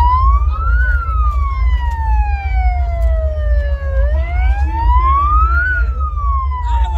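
Emergency vehicle siren sounding a slow wail: one tone that glides up and down twice, each swell taking about five seconds, over a steady deep rumble.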